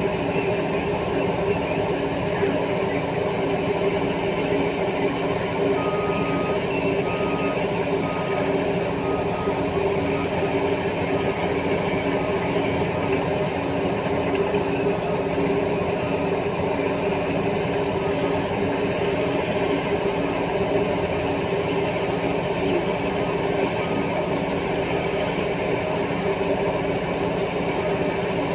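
Heavy diesel earthmoving machinery running steadily, a constant deep engine drone without pauses: a Caterpillar 395 mining excavator loading a Caterpillar 740 articulated dump truck.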